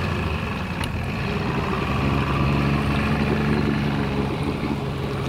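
Motorboat engine sound effect running steadily, a low even hum.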